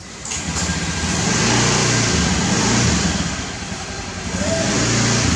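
Honda Scoopy scooter's small single-cylinder engine running and revving as the scooter pulls away. The revs climb over the first second, ease off briefly about four seconds in, then rise again.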